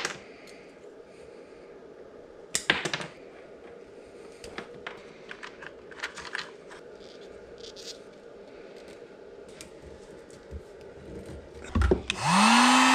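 Scattered clicks and rattles of small hand work: wire, alligator clips and a plastic connector organizer box being handled. About a second before the end, a Warrior heat gun switches on, its motor spinning up with a rising whine into a loud steady blowing.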